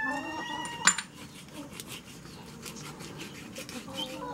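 Kitchen knife cutting and scraping through a cleaned traíra fish on a wooden cutting board, with repeated small scratchy clicks as the blade works through the flesh and fine bones. There is one sharp knock of the blade on the board about a second in.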